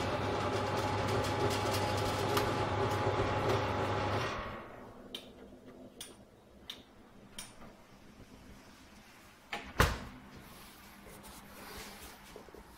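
Built-in electric oven running with a steady hum, switched off about four seconds in. Then come a few light clicks and one loud knock near the ten-second mark, the oven door being shut.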